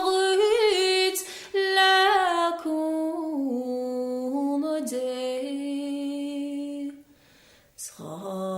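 A solo voice singing an unaccompanied song in Irish, holding long notes with small decorative turns, stepping down in pitch. Near the end it stops for about a second, a breath, and then comes back in on a lower held note.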